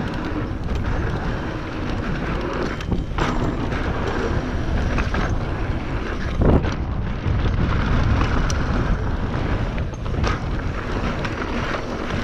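Wind buffeting the microphone over the rattle of a mountain bike running down a rough dirt trail, with a few sharp knocks from bumps along the way.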